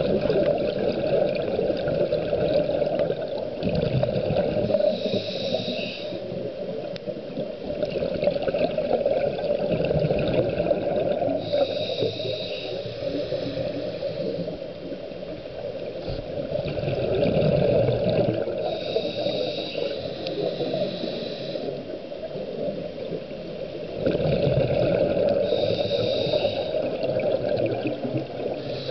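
Scuba diver breathing underwater through a regulator: a high hissing inhalation four times, about every seven seconds, between long stretches of gurgling exhaled bubbles.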